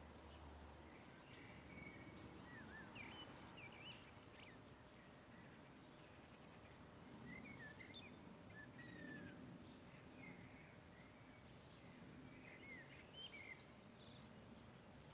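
Faint songbirds chirping: scattered short chirps and quick up-and-down whistles over a quiet background hush.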